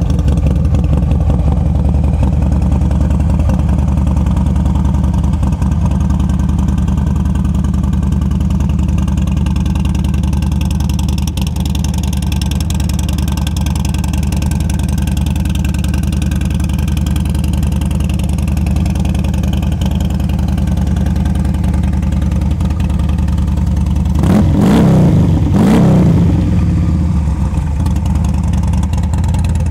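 2016 Harley-Davidson Dyna Wide Glide's High Output 103 V-twin idling steadily and loud through mufflers with the baffles taken out. Near the end the throttle is blipped twice, the revs rising and falling quickly.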